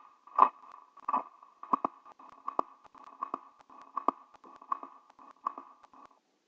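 Wind-up portable gramophone's needle riding the run-out groove of a 78 rpm shellac record: a regular click about every three-quarters of a second, once per turn of the record. The clicks stop near the end as the tonearm is lifted.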